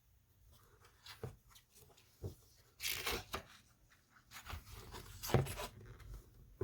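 Handling of a board book: soft paper rustles and light knocks as pages are turned.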